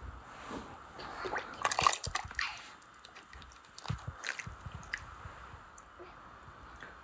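Soup being ladled from a metal cauldron into a ceramic bowl: liquid splashing and dripping, with the metal ladle clicking against pot and bowl, loudest about two seconds in.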